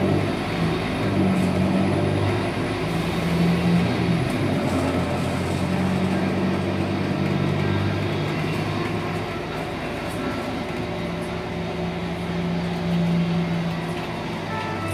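Scania K280UB bus's 9.3-litre five-cylinder diesel engine and ZF Ecolife automatic gearbox, heard from inside the passenger cabin while the bus drives. The engine note holds steady for a couple of seconds at a time and comes and goes, over the cabin's rolling noise.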